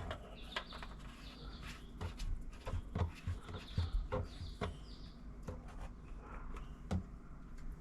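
Scattered light clicks and knocks of small hard objects being handled, with a few faint bird chirps.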